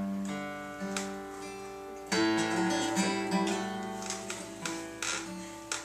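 Solo acoustic guitar fingerpicked, chords and single notes ringing out, with a louder strummed chord about two seconds in: the instrumental ending of a slow country song.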